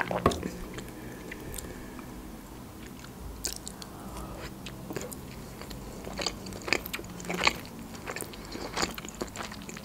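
A sharp knock just after the start, then close-miked biting and chewing of a sushi roll: scattered wet mouth clicks and smacks through the second half.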